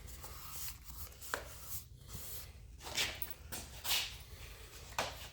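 Light handling sounds: short scrapes and rustles with a few sharper taps as blue painter's tape is worked onto the cracked plastic fridge door frame to hold the epoxied joint together.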